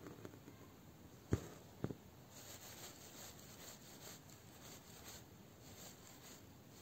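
Faint rubbing of embroidery thread drawn through fabric during hand bead embroidery, in a run of short, soft brushing strokes. Two soft taps come about a second and a half in, half a second apart.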